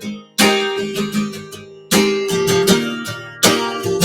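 Acoustic guitar strummed: three strong chords about a second and a half apart, each ringing and fading before the next, with lighter strokes between.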